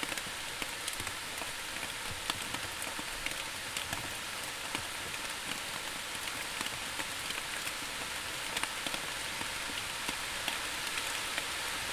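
Steady rain falling on a surface: an even hiss with many individual drops ticking through it.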